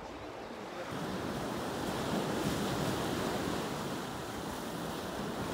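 Ocean surf washing against a rocky shore, swelling about a second in and easing slightly near the end, with wind on the microphone.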